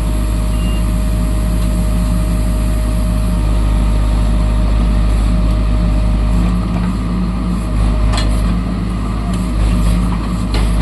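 JCB backhoe loader's diesel engine running steadily under work, a deep drone with a steady whine over it, and a single knock about eight seconds in.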